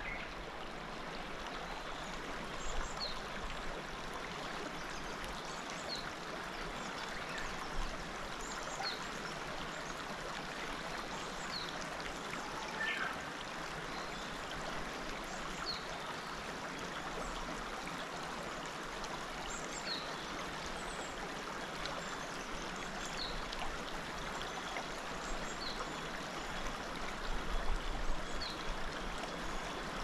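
Clear mountain river (the Azusa River) flowing shallow over a stony bed: a steady babbling rush, with short high bird chirps about every two seconds.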